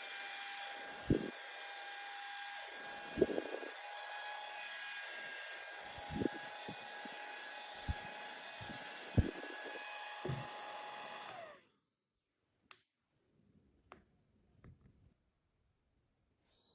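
Small battery-powered handheld fan running at a steady high whine, with a few light handling knocks. About eleven seconds in it is switched off and the whine drops and dies away, leaving only faint clicks.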